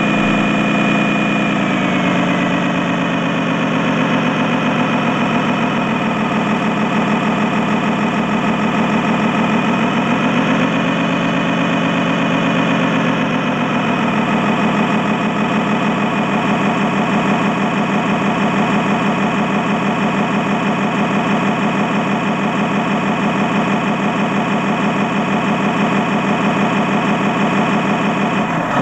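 Simulated diesel engine sound from an RC model truck's sound module, running steadily. Its pitch drops about two seconds in, climbs again around ten seconds, and settles back down near fourteen seconds.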